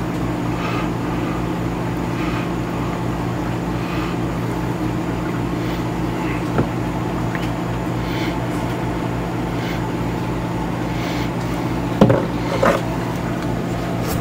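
Steady low machinery hum, with engine oil being poured from a plastic gallon jug into the oil fill of a Caterpillar 3208 marine diesel that is not running. Two short knocks near the end as the jug is handled.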